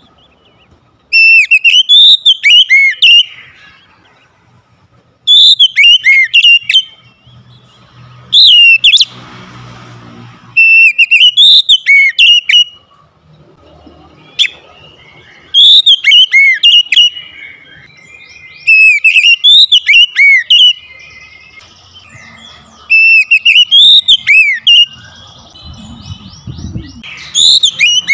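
Oriental magpie-robin singing: loud, varied whistled phrases of a second or two with quick up-and-down sweeps, repeated every few seconds with short pauses between.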